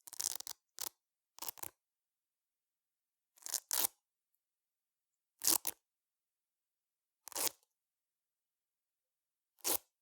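Short strips of hook-and-loop fastener (Velcro) being pulled apart, one quick rip at a time: about seven short tearing rasps, more frequent in the first two seconds and then roughly every two seconds, with dead silence between them.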